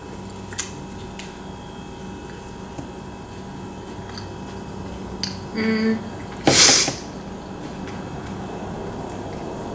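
Quiet eating sounds from a person chewing a corn dog over a steady room hum, with a few soft clicks. About five and a half seconds in there is a brief hummed sound, and just after it a short, loud rushing noise, the loudest thing here.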